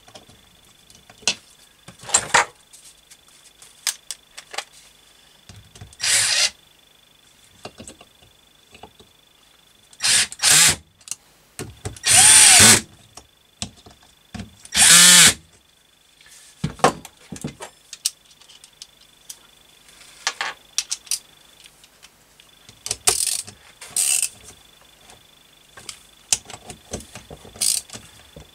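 A Metabo cordless drill-driver runs in a handful of short bursts, most under a second and one a little over a second, as it drives in the bolts holding an ignition stator to the engine case. Light metallic clicks and taps fall between the bursts.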